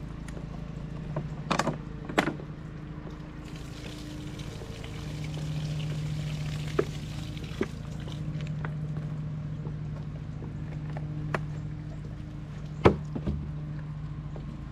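A steady low engine-like hum, with scattered sharp clicks and knocks as the shot water bottles are handled.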